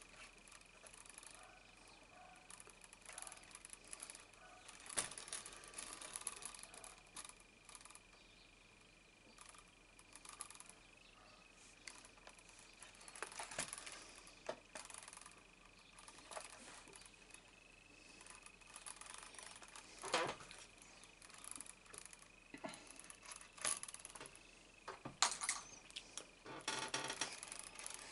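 Leather being hand-stitched: scattered small clicks and taps of the needles and the rub of thread drawn through the stitch holes, the loudest tap about twenty seconds in. A faint steady high whine sits under it.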